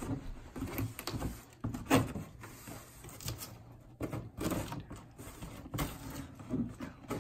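A knife slitting the packing tape along a tall cardboard box, with uneven scrapes, rustles and knocks of the cardboard as it is handled; one sharper knock about two seconds in.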